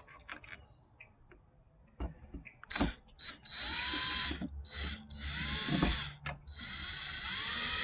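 Power drill-driver running in three bursts about a second or more each, its motor whine rising at each start, driving a machine screw into an RV door lock. A few light clicks come before the first burst.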